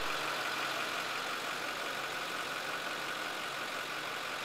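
An engine idling steadily, a constant hum with an even hiss over it.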